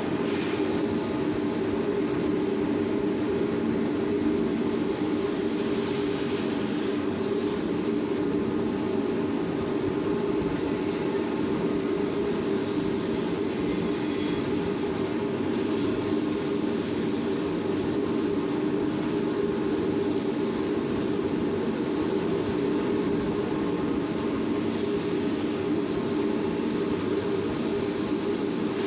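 New Japan Paulo 2000 industrial cyclone vacuum, driven by a 20 HP two-pole electric motor, running steadily at full suction while it picks up wet sand. A hiss in the upper range grows louder for a few seconds at a time.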